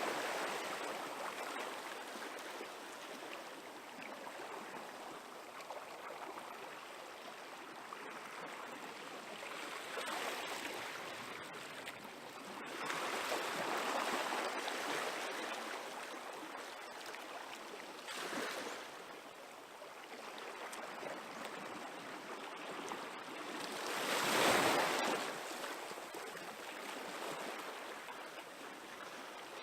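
Small waves from a calm sea washing gently onto the shore: a steady hiss of surf that swells and fades every few seconds, with a few slightly bigger washes, the loudest near the end.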